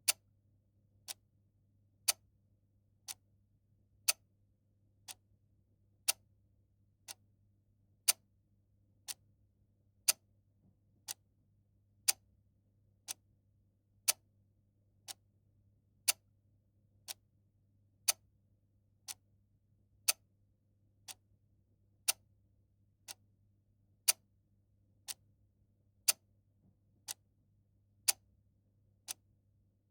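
Clock ticking steadily at one tick a second, a louder tick alternating with a softer tock, over a faint low hum.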